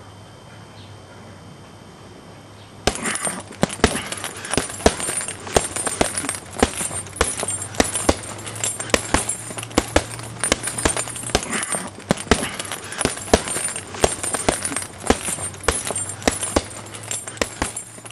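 Rapid flurry of boxing-glove punches landing on a punching bag, several blows a second, starting suddenly about three seconds in and keeping up with a crackly edge to each hit.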